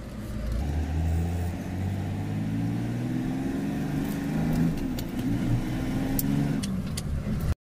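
A heavy truck's diesel engine, heard from inside the cab, pulling away out of a turn. Its pitch climbs steadily as it accelerates. The sound cuts off abruptly just before the end.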